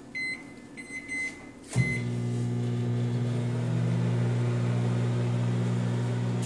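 Microwave oven keypad beeping about five times as the cook time is entered, then the oven starting with a clunk and running with a steady low hum.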